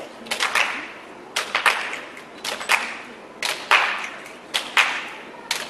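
A group of dancers clapping their hands in unison to a slow beat, one slightly ragged cluster of claps about once a second.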